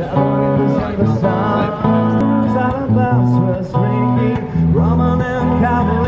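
Music: a strummed acoustic guitar with a melody line over it.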